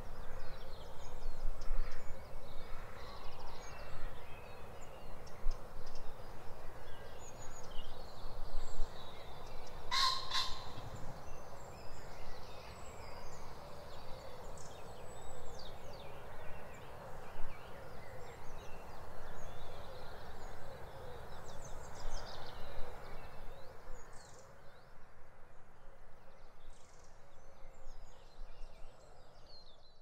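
Birds calling and singing: many short, high chirps and phrases over a steady background hiss, with one loud, short two-part call about ten seconds in. The high calls thin out near the end.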